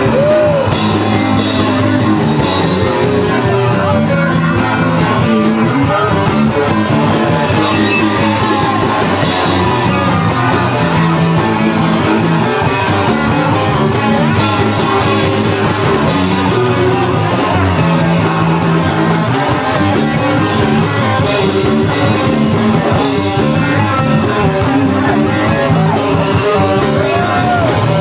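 Rock band playing live at full volume: electric guitar and drums, with singing.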